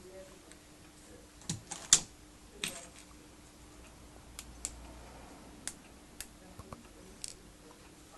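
Irregular light clicks and knocks from flat-pack vanity cabinet panels and hardware being handled, about a dozen in all, the loudest a sharp knock about two seconds in.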